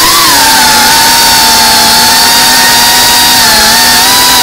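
FPV racing quadcopter's electric motors and propellers whining loudly, heard through the onboard camera; the pitch lifts briefly just after the start with a throttle change, then holds steady.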